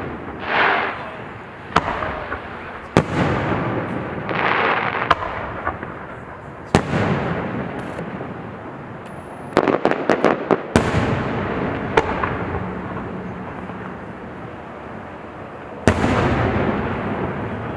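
Aerial fireworks exploding: sharp booms every second or two, each trailing off in a long rumbling echo, with a quick rattle of several cracks about ten seconds in.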